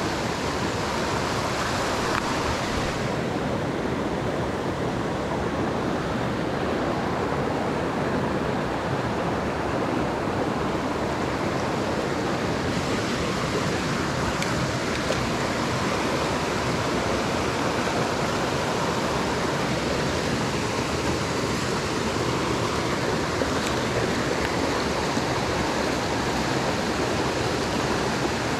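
Small mountain creek running, a steady rush of water. The hiss turns duller about three seconds in and brightens again near the middle.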